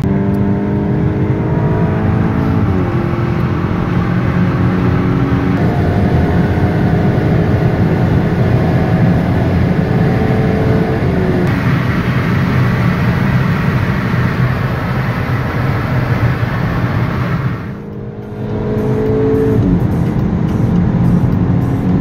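VW Golf 8 GTI Clubsport's turbocharged 2.0-litre four-cylinder engine pulling hard under acceleration: its note climbs slowly and drops at each upshift, about four times, over steady tyre and wind noise. The sound eases off briefly about three-quarters of the way through, then builds again.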